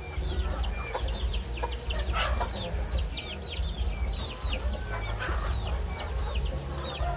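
Chickens calling, with rapid short, high, falling peeps repeating throughout over a low steady rumble.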